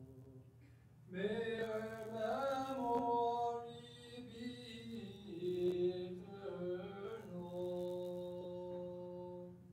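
A solo voice singing Orthodox funeral chant without accompaniment: a slow, gliding melody that begins about a second in and ends on a long held note.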